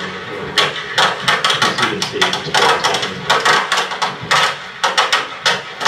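Ammunition cooking off in a fire: many sharp pops and cracks in quick, irregular succession, several a second.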